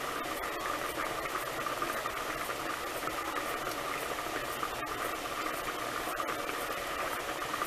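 Pot of water with ham hocks at a rolling boil, a steady bubbling.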